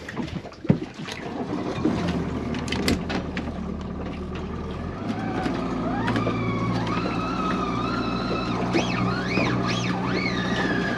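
Boat motor running under throttle; it picks up about two seconds in, and from about halfway a whining tone rises and wavers up and down.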